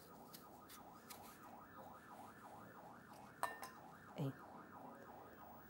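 A knife blade clinks once against a glass bowl about three and a half seconds in, with a short ring. A faint warbling tone rises and falls about four times a second throughout.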